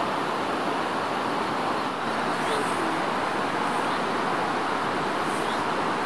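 Steady rush of whitewater rapids in a fast-flowing rocky river.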